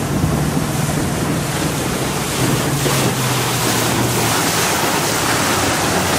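Bass boat under way: wind buffeting the microphone and water rushing past the hull, over a low engine hum.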